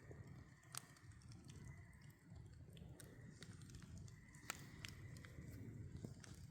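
Campfire crackling quietly: burning wood gives off irregular sharp pops and snaps, about one or two a second and a few louder, over a low, steady rumble of flame. A faint, thin whistle comes and goes.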